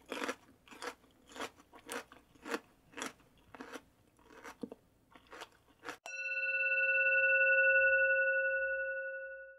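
Steady crunching of someone chewing crisp chips, about two bites a second. About six seconds in, it gives way to a sustained bell-like ringing tone that swells and then fades.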